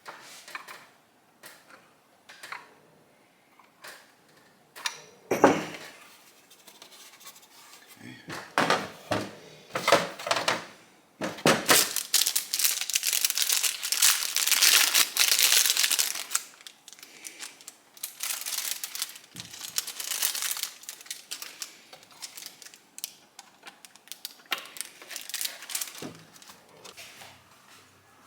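Hands working on small parts: scattered clicks and knocks with a long stretch of rustling and crinkling in the middle.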